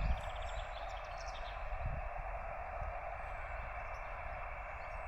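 Amateur radio transceiver (LAB599 TX-500) hissing with steady band noise through its SSB receive filter while it listens on a frequency where no station is answering the CQ. A few faint bird chirps come in during the first second, over a low rumble.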